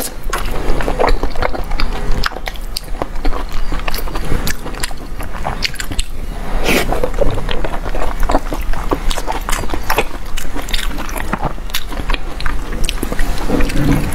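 Close-miked biting and chewing of braised pig intestine fat (jiguanyou), a steady run of irregular mouth clicks and smacks from a lapel microphone.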